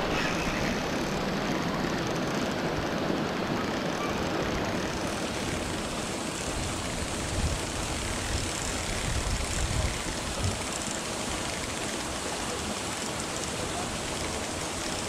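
Steady rushing wind noise on an action camera's microphone, with water splashing from a hooked fish thrashing at the surface near the start.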